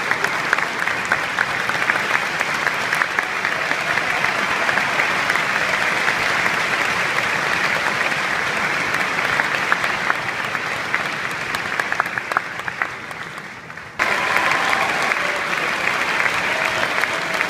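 Large concert-hall audience applauding steadily. The applause fades somewhat, then jumps back suddenly at full strength about fourteen seconds in.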